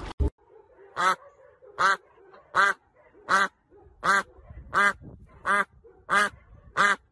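White domestic duck quacking repeatedly, nine loud quacks at an even pace of a little more than one a second.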